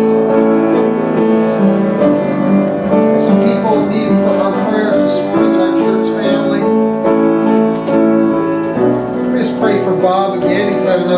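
Piano playing slow, sustained chords as soft worship music.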